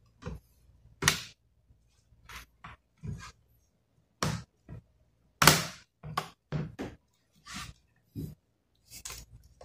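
Plastic bottom cover of a laptop being pressed back on by hand, its snap-fit clips latching in a string of irregular sharp clicks and knocks, the loudest about halfway through.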